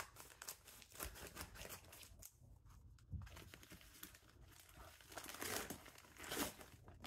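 Brown paper mailer bag crinkling and rustling as it is cut and pulled open by hand, louder about five and six seconds in.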